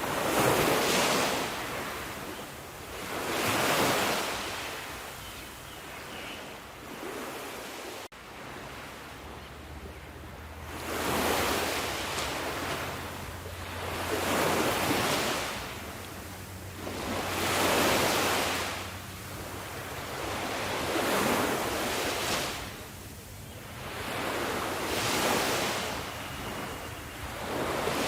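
Sea waves breaking and washing up the shore, one swelling surge every three to four seconds, with a longer lull about five to ten seconds in.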